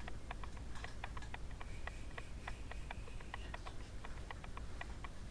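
Light, regular ticking, about four to five ticks a second, over a low steady hum.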